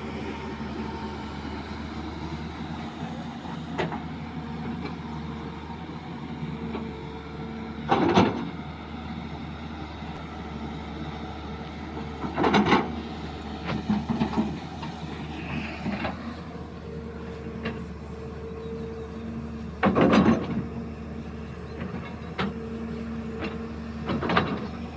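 JCB backhoe loader's diesel engine running steadily, with four loud clanks of metal spread over the stretch as the machine works.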